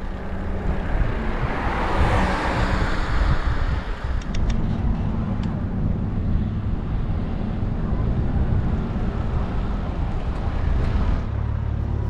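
Vehicle noise: a rushing sound swells and fades over the first few seconds, then a steady low rumble sets in about four seconds in.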